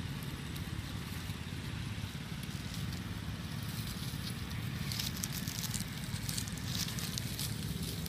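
Dry fallen leaves crackling and rustling, thickening from about five seconds in, over a steady low rumble.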